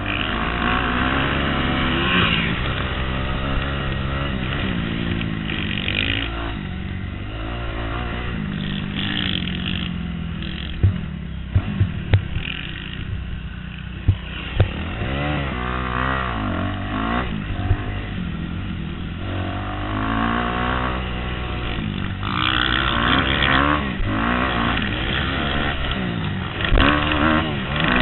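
Kawasaki KX250F single-cylinder four-stroke motocross bike heard from on board, its engine revving up and dropping off again and again as it accelerates, shifts and slows for corners. A few sharp knocks come about halfway through.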